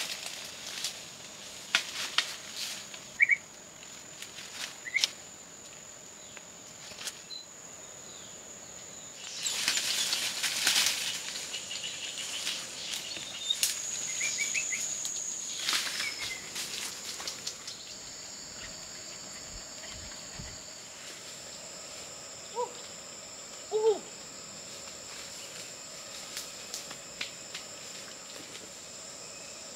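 Footsteps and rustling through dry leaf litter and forest brush, with twig snaps, over a steady high drone of insects. The rustling is densest about a third of the way in, and a few short bird-like chirps and calls come and go.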